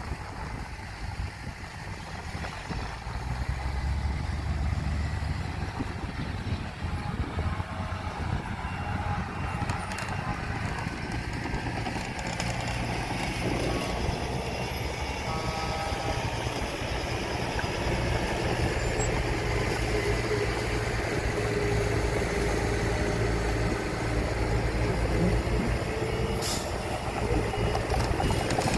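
Diesel engines of heavy earthmoving trucks and machinery running steadily at low pitch, growing louder a few seconds in. A faint steady whine appears in the second half, and two brief clicks are heard.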